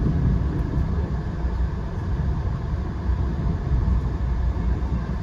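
Via Rail passenger train running, heard from on board: a steady low rumble of wheels on track.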